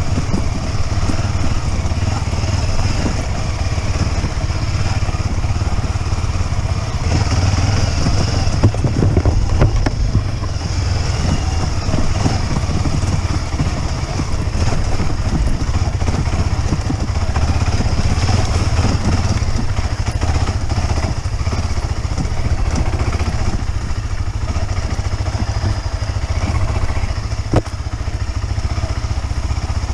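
Motorcycle engine running steadily while riding, with a constant haze of ride noise over it.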